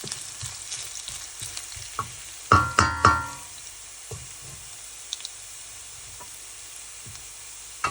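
Chopped ginger sizzling in hot oil in a pan while a spatula stirs it, scraping and tapping against the pan. About two and a half seconds in, a louder metallic clatter of the utensil on the pan rings briefly.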